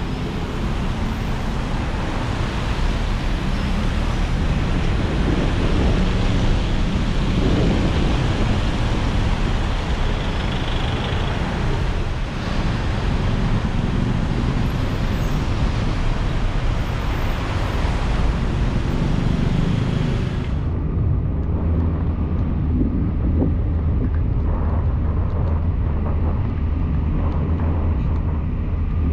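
Car driving in rain: a steady low rumble of engine and tyres on the road with a broad hiss of rain and wet-road spray over it. About two-thirds of the way through, the hiss drops away abruptly, leaving mostly the low rumble.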